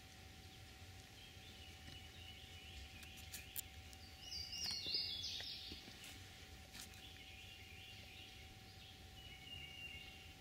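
Songbirds singing, several short high chirping phrases with the loudest, a stepped high phrase, about four and a half seconds in, over a faint steady hum and a few light clicks.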